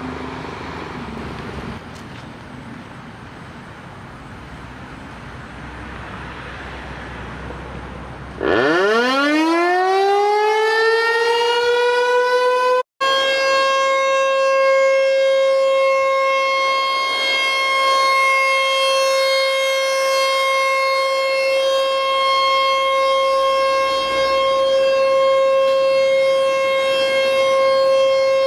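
Outdoor warning siren winding up about a third of the way in: its pitch climbs quickly, then levels off into a steady, loud wail that holds to the end. There is a split-second cut in the audio just after it reaches full pitch. Before it starts there is only a hiss of background noise.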